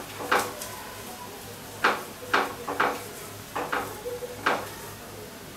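A steel spoon scraping and clinking against a hot iron tawa in short strokes, about six over a few seconds, as it spreads oil across a thalipeeth.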